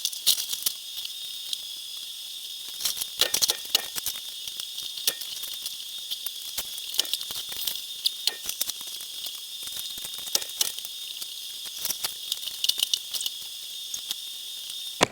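Irregular sharp clicks and crackles of broken tile and cement board being chipped and handled, over a steady high hiss.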